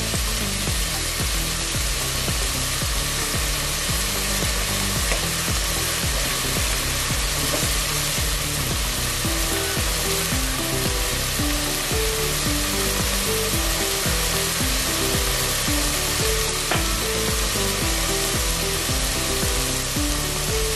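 Chicken pieces, onion and garlic sizzling steadily in hot oil in an aluminium pot as they sauté.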